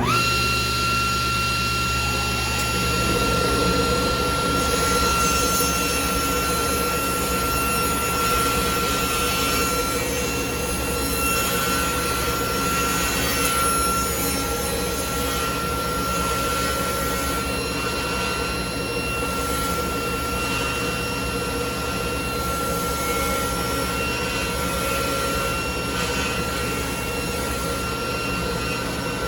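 Table saw switched on: the motor's whine climbs to speed in a moment and then holds steady. From about three seconds in, a rougher, slightly louder sound from the blade ripping through a rough-sawn board runs under the whine.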